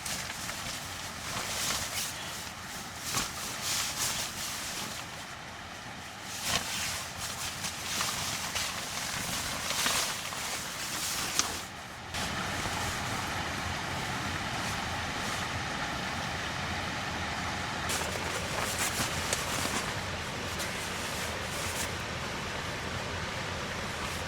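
Rain on tent canvas: a noisy patter full of sharp crackles and pops for the first half, changing suddenly about halfway through to a steadier, even rush of rain.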